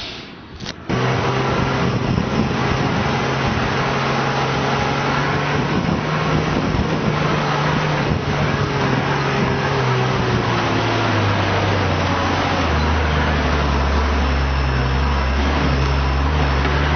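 Four-wheel-drive vehicle's engine driving up a sandy track, with steady engine hum under tyre and wind noise; the engine note drops lower about two-thirds of the way through.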